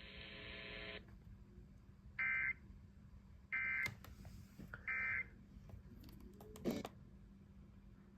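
Three short bursts of EAS digital data tones from a weather radio broadcast, about 1.3 seconds apart: the end-of-message code that closes the warning. A couple of clicks follow near the end.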